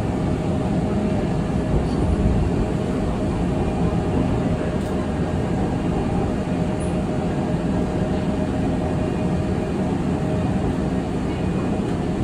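Seoul Metro Line 2 electric train running steadily at speed, heard from inside the car: an even rumble of wheels on rails, with a faint steady whine.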